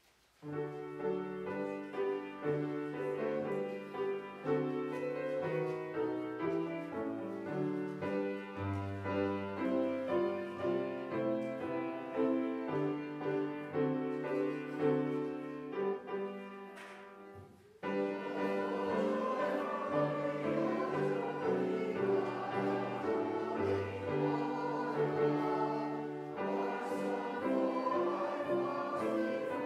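Congregation singing a hymn with piano accompaniment. The music starts about half a second in, stops for about a second just past halfway, then goes on.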